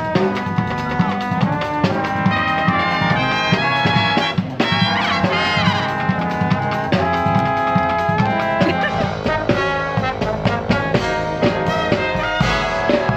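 Live brass marching band playing: trumpets, trombones and sousaphones over drums keeping a steady beat.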